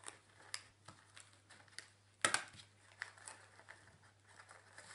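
Paper crinkling and small clicks as a wire string of fairy lights is pushed into the mouth of a paper fish, with one louder crinkle a little over two seconds in.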